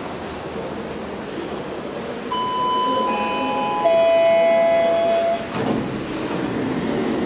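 Elevator arrival chime: a two-tone electronic ding-dong, a higher tone about two seconds in followed by a louder, lower tone held for about a second and a half, over a steady background rumble.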